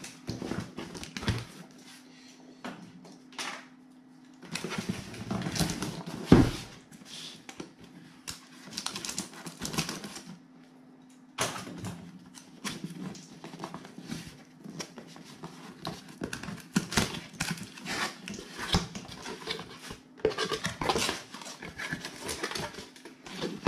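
A cardboard box being handled and opened by hand, with irregular rustling, scraping and tapping of the cardboard and a sharp thump about six seconds in. A steady low hum runs underneath.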